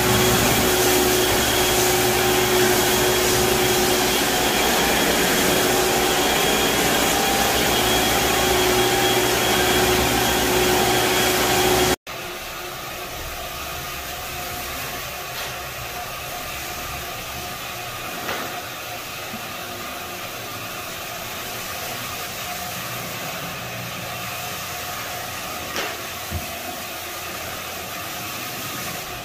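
A floor-cleaning machine's vacuum motor running loud and steady. About twelve seconds in it cuts to the quieter, steady hum of a single-disc rotary floor buffer screening a hardwood floor, with a few faint clicks.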